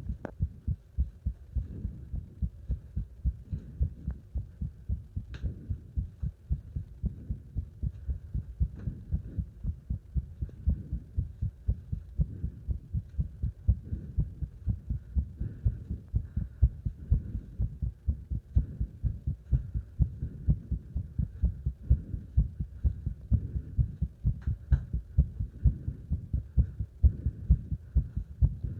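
Human heart sounds during exercise: a fast, regular heartbeat of low thumps, with loud breathing faintly audible beneath.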